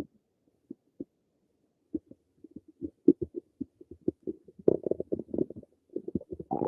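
Human stomach gurgling: irregular small pops and bubbling squelches, only a few scattered at first, then a busy run of them from about two seconds in.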